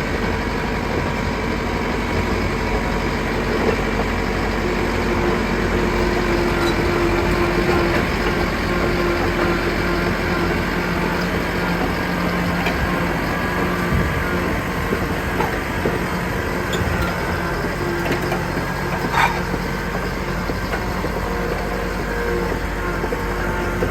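Caterpillar 963 crawler loader's diesel engine running steadily under work, with a few clanks from the machine, one louder about nineteen seconds in.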